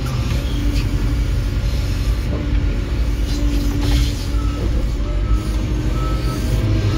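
Diesel engine of construction plant running steadily, heard from inside a machine's cab, with a faint higher whine coming and going.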